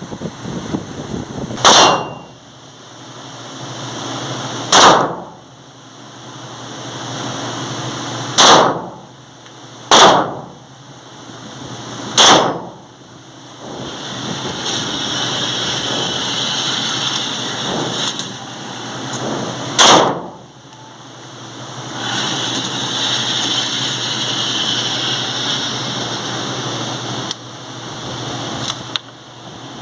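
Glock 17 9mm pistol firing six single shots of reloaded ammunition at uneven intervals, each a sharp crack with a short ringing decay. A background hiss swells back up in the gaps between shots.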